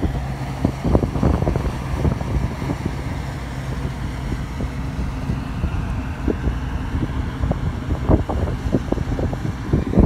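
Combine harvester engine running steadily under load while harvesting wheat, a constant low hum, with gusts of wind buffeting the microphone.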